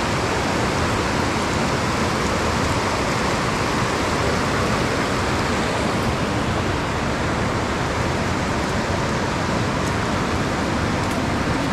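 Steady rushing of a shallow, rocky stream pouring over boulders and small cascades.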